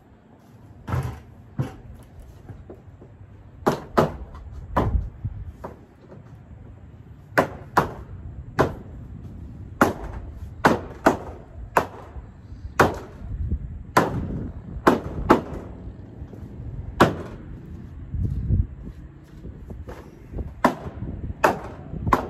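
Plastic shelving unit being knocked together with a mallet: about twenty sharp knocks at uneven intervals, often in quick twos or threes.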